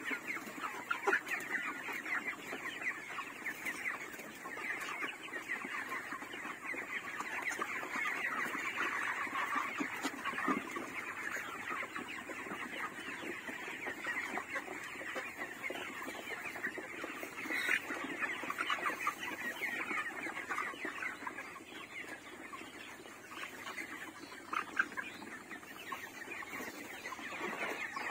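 A large flock of 32-day-old broiler chickens clucking and cheeping without a break, many birds calling over one another.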